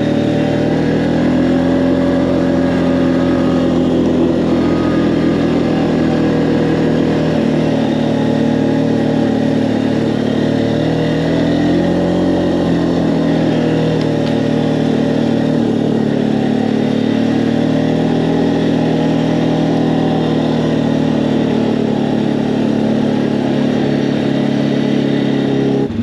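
Can-Am Outlander 450 ATV's single-cylinder engine running steadily as the quad is ridden along a trail, its pitch rising and falling gently with the throttle.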